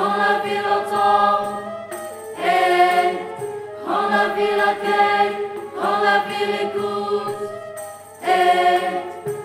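Mixed choir singing in sustained phrases of one to two seconds each with short breaks between them, accompanied by a Balinese gamelan ensemble.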